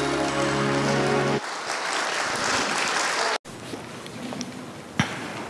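Music with sustained tones ends about one and a half seconds in and gives way to audience applause. The applause cuts off abruptly about halfway through and leaves a quiet room with a single sharp knock near the end.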